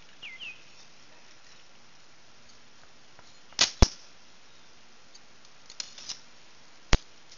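An arrow shot from a bow: a loud release about three and a half seconds in, two sharp cracks a quarter second apart. A few faint clicks and one more sharp click follow near the end. A bird chirps briefly at the start.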